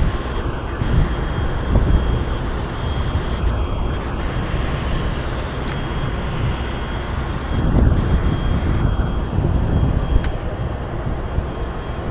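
Steady roar of aircraft engines running nearby, with a thin constant whine, and wind buffeting the microphone in gusts about a second in and again near eight seconds.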